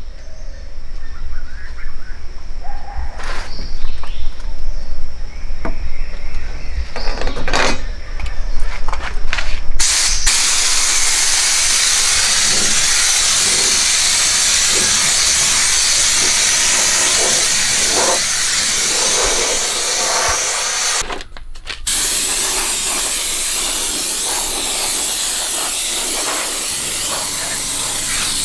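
Several seconds of handling knocks and clatter, then a compressed-air siphon spray gun hissing steadily as it blasts wash solution from its canister onto the scooter. The hiss starts about a third of the way in, stops briefly about three-quarters of the way through, and then resumes.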